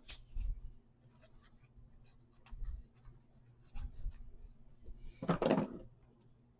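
Paper pieces being handled and moved by hand on a craft table: scattered light taps and clicks, with one louder rustling scrape of paper sliding about five seconds in.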